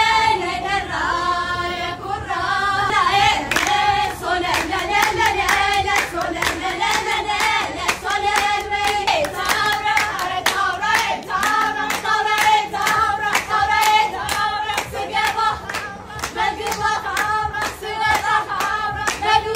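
A group of young women and girls singing a traditional Ashenda song together, keeping time with steady rhythmic hand clapping.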